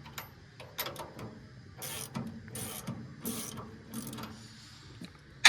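A hand wrench ratchets as it loosens the nuts holding a firewood processor's saw bar: a run of short clicking strokes, under a second apart, with a loud sharp metallic click near the end.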